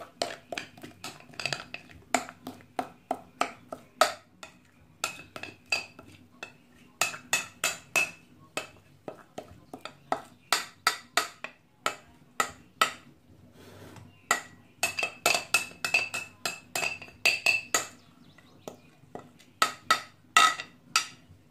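Metal spoon striking and scraping against the inside of a glass mixing bowl as cake batter is scraped out: runs of sharp clinks, about three a second, each with a short ring, broken by brief pauses.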